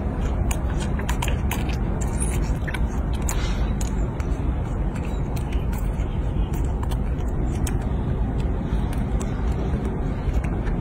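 Baby monkey chewing and smacking on fruit, with many small sharp clicks scattered through, over a steady low rumble.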